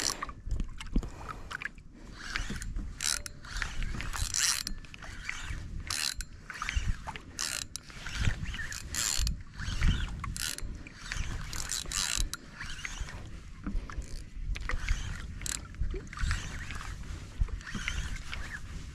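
Spinning fishing reel cranked in irregular bursts while a hooked fish is reeled in on a bent rod, with a low rumble underneath.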